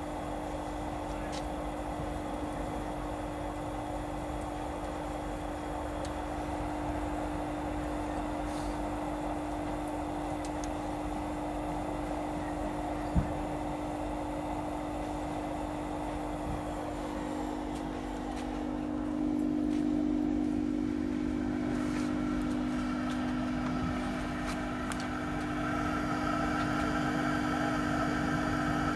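Orion ecodan HCM10 kerosene jet heater running: its fan and burner make a steady hum with a rushing noise above it. A single sharp knock comes about halfway through, and a higher steady whine joins in the last third.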